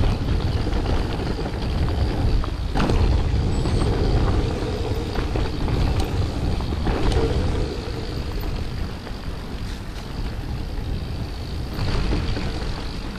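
Mountain bike riding fast downhill on a dirt and gravel trail: wind buffeting the microphone and a steady rumble of tyres on the ground, with a few sharp knocks as the bike hits bumps, about three seconds, seven seconds and twelve seconds in.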